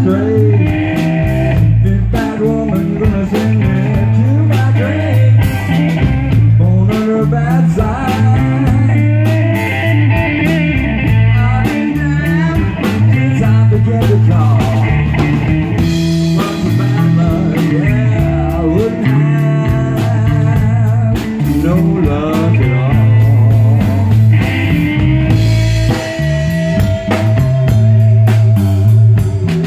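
Live blues-rock band playing: electric guitar lead lines with bent and held notes over bass guitar and a drum kit.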